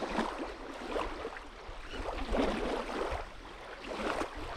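Small waves lapping and washing on a sandy shore in irregular surges, over a steady low rumble of wind on the microphone.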